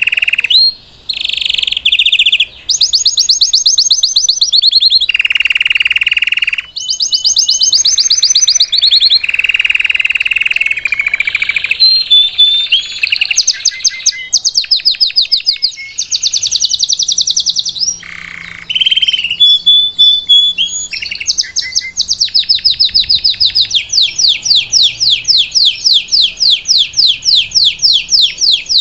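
Belgian canary (salsa song type) singing a long continuous song of rapid trills and rolls, changing phrase every second or two. Near the end it settles into a long, fast trill of repeated sweeping notes.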